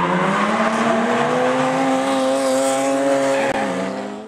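Race car engine held at high revs while the car spins its tyres in a drift, with tyre squeal. The engine pitch rises a little, holds steady, then drops, and the sound fades away near the end.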